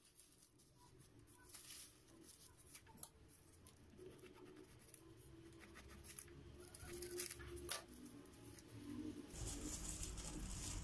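Faint scratching and rustling as a stack of baklava phyllo sheets is cut to the size of a baking tray, with a few light sharp clicks.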